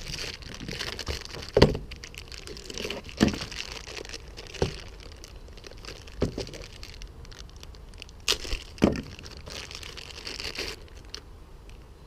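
Rustling and crinkling as tools are handled, with about seven sharp knocks, the loudest a little over a second in and a quick cluster of three near the end.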